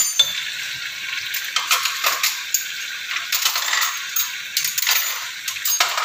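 Chicken leg pieces sizzling as they fry in ghee with a masala paste, with a steady hiss. A stirring spoon scrapes and knocks against the non-stick pot again and again at irregular times.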